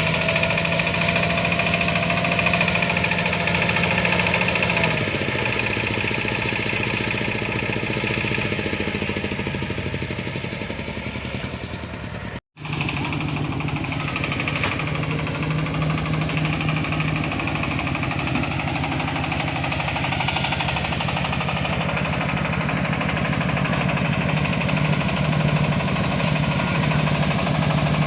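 An engine running steadily at a constant speed. Its hum breaks off for an instant about halfway and then picks up again.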